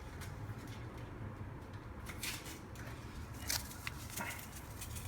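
Faint rustles and a few small clicks from kitchen items being handled over the rice, spaced a second or so apart, over a low steady hum.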